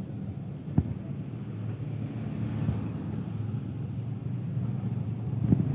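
Passenger coaches of a train rolling past, a steady low rumble with a sharp knock about a second in and another near the end as the wheels cross rail joints.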